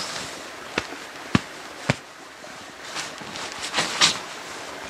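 Rustling of clothing and a ground sheet as a person sits down and settles onto a mat in the snow. Three sharp clicks come about half a second apart in the first two seconds, and a few louder rustles come near the end.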